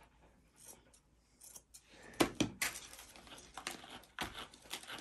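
A grooming brush raking through a dog's thick curly coat in a series of short scratchy strokes, starting about two seconds in, each one catching on still-tangled curls.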